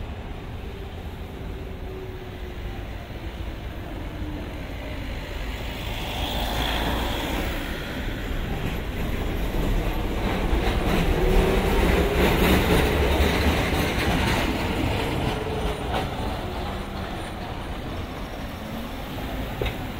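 A street tram passing: a low whine and its wheels clicking and clattering on the rails swell to a peak about halfway through, then fade, over steady city traffic.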